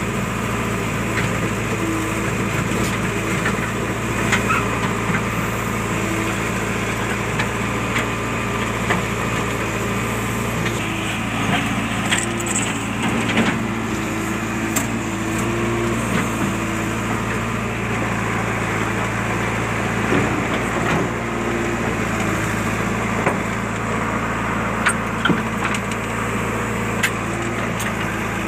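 JCB backhoe loader's diesel engine running steadily while digging, with scattered sharp cracks and knocks over the engine sound.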